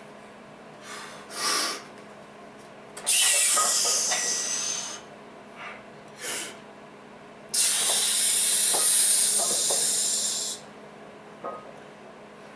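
A lifter's heavy, forceful breathing straight after a hard barbell squat set. There are two long hissing exhales, about two and three seconds each, with short sharp breaths between them.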